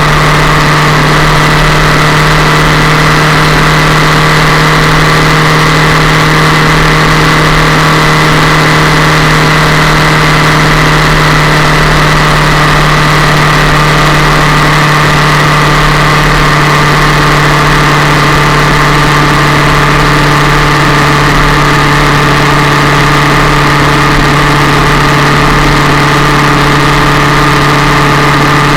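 Yamaha MT-07's parallel-twin engine running at a steady engine speed through a twin-muffler exhaust, very loud and unchanging in pitch with no revving, picked up close to the engine on the frame slider.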